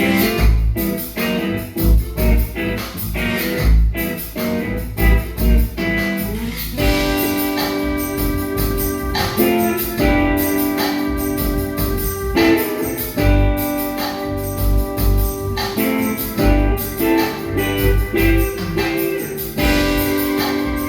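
Live band playing an instrumental passage, with heavy bass notes throughout and, from about a third of the way in, long sustained chords held over them.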